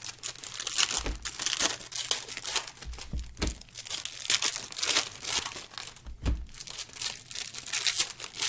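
Plastic shrink wrap on trading-card boxes crinkling and tearing as it is pulled off by hand, a dense irregular crackle with a few dull knocks of the boxes being handled.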